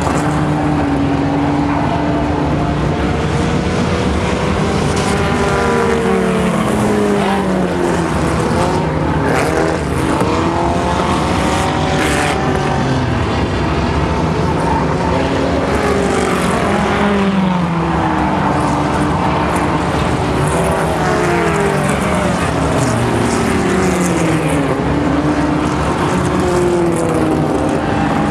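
Several small dirt-track race cars racing as a pack, their engines revving up and easing off in overlapping waves as they lap the track and pass by.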